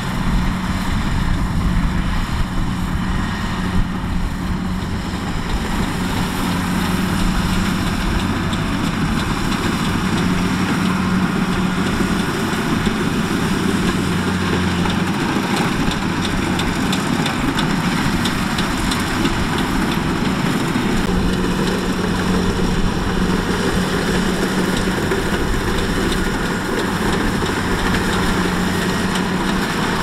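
Rice combine harvester's diesel engine running steadily: a constant hum with a broad mechanical noise over it.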